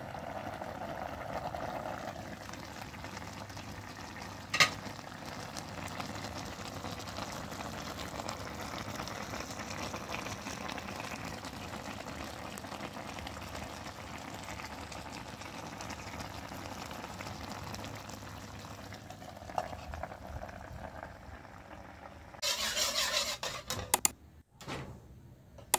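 Pork and jackfruit curry simmering in a steel wok: a steady bubbling hiss, with a single sharp click about five seconds in. Near the end comes a couple of seconds of louder hissing, and then a sharp click.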